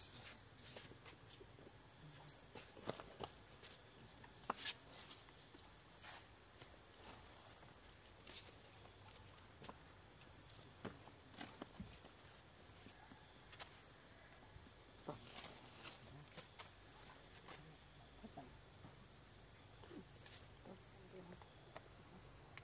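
Steady high-pitched drone of insects in the surrounding vegetation, with scattered soft clicks and a few faint short calls near the end.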